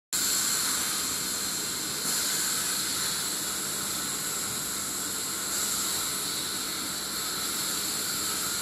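Steady rushing, hiss-like background noise with a faint low hum, cutting in suddenly at the start.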